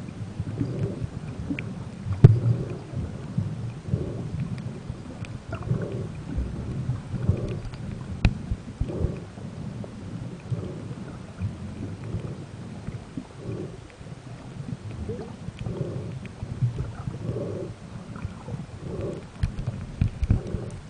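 Muffled underwater noise picked up by a camera inside a waterproof housing: a low rumble with scattered small clicks and a soft pulse repeating about every second and a half.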